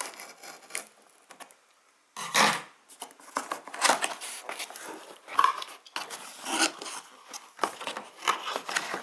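Cardboard box being opened by hand: a few faint clicks, then from about two seconds in a run of scraping, rubbing and rustling as the cardboard flaps are pulled open.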